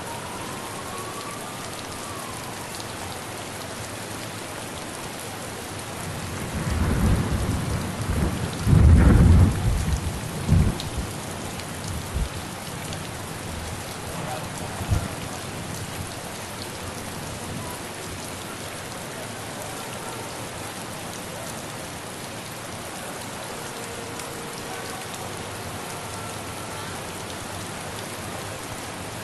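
Steady rain falling, with a rumble of thunder that builds about six seconds in, is loudest near nine seconds and dies away by eleven, followed by a couple of short, weaker low thuds.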